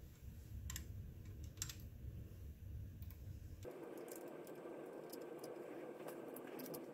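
Faint small metallic clicks and taps of a tiny retaining screw and screwdriver being handled and turned in a Winchester 1886 rifle's receiver. A couple of separate clicks in the first two seconds, then more frequent light clicking from about three and a half seconds in.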